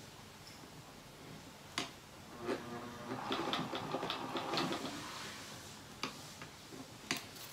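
Sewing machine stitching through the layers of a quilt in one short run of about two and a half seconds, starting a couple of seconds in, a fast rattle of needle strokes over a motor hum. A few separate sharp clicks come before and after the run.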